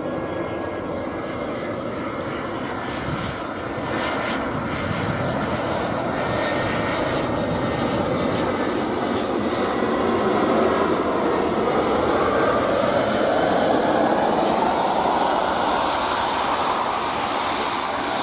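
Jet engines of an arriving easyJet Airbus A319, a steady rushing noise that swells from about four seconds in to its loudest past the middle, then eases slightly near the end.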